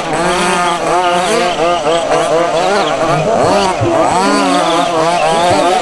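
Several 1:5 scale petrol RC buggies' two-stroke engines running together, revving up and down rapidly as they race, their buzzing pitches overlapping and constantly rising and falling.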